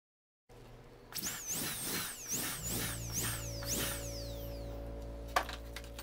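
High-speed dental handpiece (air-turbine drill) whining, its pitch rising and falling about six times as it is revved in short pulses, then winding down with a falling whine. A sharp click follows near the end over a steady low hum.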